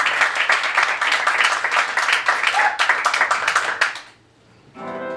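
Audience applauding, a dense patter of clapping that dies away about four seconds in. Near the end, the accompaniment begins with sustained chords for the song's introduction.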